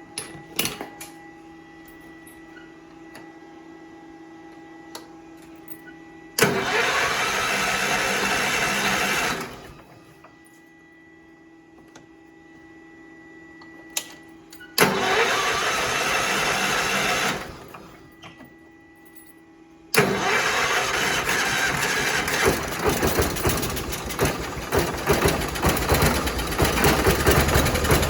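Allis-Chalmers tractor's Kohler engine cranked by the starter twice, about three seconds each, then catching on the third try about two-thirds of the way in and running loud and uneven. It races as if at wide-open throttle because the carburetor is stuck open.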